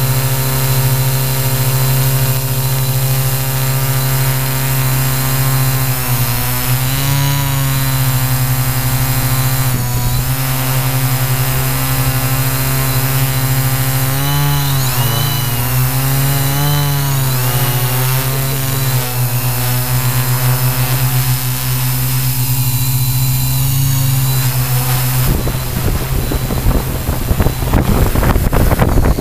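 Q800 multirotor drone's electric motors and propellers heard from its onboard camera: a loud, steady hum whose pitch wavers up and down as the motors hold the craft in a low hover. About 25 seconds in the steady tone breaks into a rough, uneven noise as the drone comes down into the grass.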